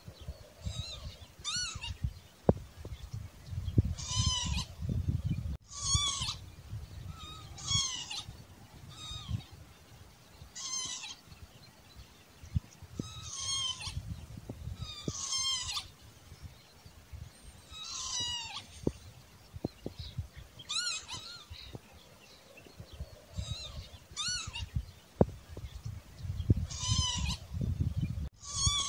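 Northern lapwing calling over and over, giving short, wheezy, sliding 'pee-wit' calls about every one to two seconds, with a low rumble underneath.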